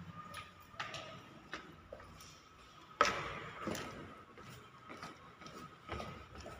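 Footsteps going down a staircase, irregular sharp footfalls with the loudest about three seconds in, each with a short echo, over a faint steady high whine.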